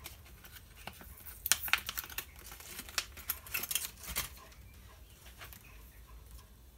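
Light clicks and rattles of fishing hooks and small tackle being handled on a worktop as one hook is picked out, busiest from about a second and a half in and fading after about four seconds.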